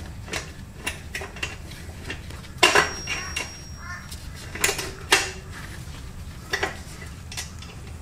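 Metal clinks and clanks of a spanner turning the chain adjuster bolt on a motorcycle's rear axle: a handful of sharp knocks spread out, one leaving a thin high ring for about a second.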